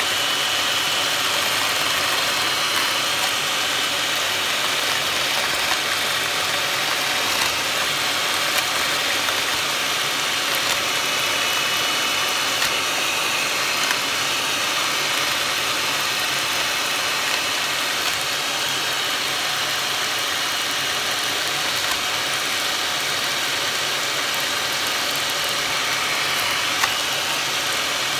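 Electric hand mixer running steadily, its two beaters whisking a runny milk batter in a bowl toward a creamy consistency.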